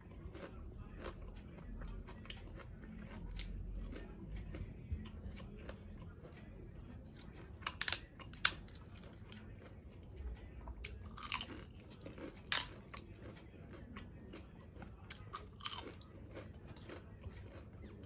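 A person chewing and biting food: steady small mouth clicks and smacks, with several louder sharp crunches of crisp food scattered through.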